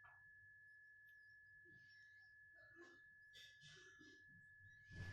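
Near silence: room tone with a faint steady high-pitched whine and a few soft, faint noises.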